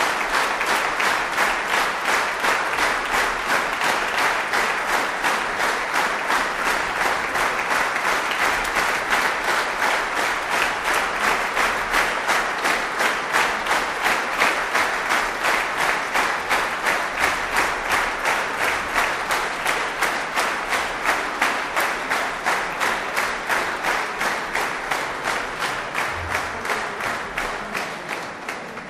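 Concert audience applauding, the clapping falling into an even rhythm of about three claps a second, then dying away near the end.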